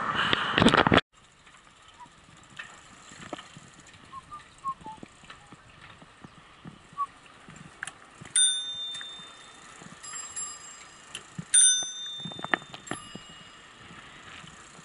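Bicycle bell rung, two bright dings about three seconds apart that ring on and fade over a second or so, with fainter dings between; light ticking and rattling of a bicycle riding over pavement underneath.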